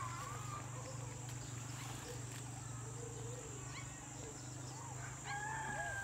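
Outdoor ambience with a low steady hum and scattered short bird chirps. About five seconds in, a long, steady, high-pitched animal call begins and holds.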